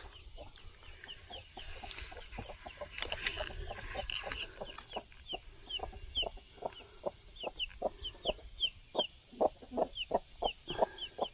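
Broody hen clucking in quick, short clucks, several a second, with a chick peeping in short high chirps over them.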